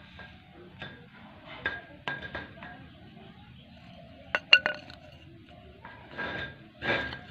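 Budgerigars' beaks tapping and pecking against a clay pot: a scatter of sharp, clinking clicks, with three quick ones close together about four and a half seconds in, and two longer, rougher scraping sounds near the end.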